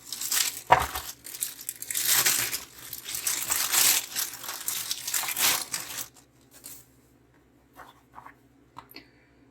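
Packaging rustling and crinkling as it is handled and opened, in loud bursts over the first six seconds, followed by a few light clicks and taps.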